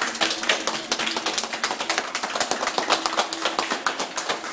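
Audience applauding: many hands clapping in a dense, uneven patter.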